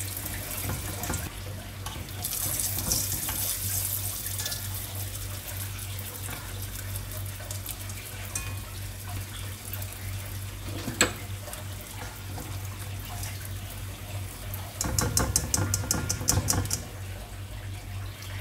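Water running from a kitchen tap into the sink, over a steady low hum. There is a single sharp click about eleven seconds in, and a quick run of ticks with a louder low rumble near the end.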